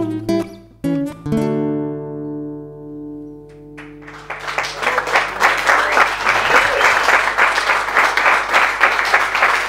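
Acoustic guitar playing the closing chords of a folk song, the last strummed chord ringing and fading away. About four seconds in, an audience breaks into steady applause that goes on from there.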